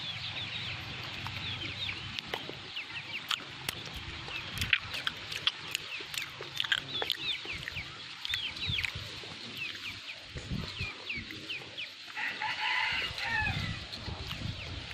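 Birds calling: many short, falling chirps, with one longer, fuller call lasting over a second about twelve seconds in.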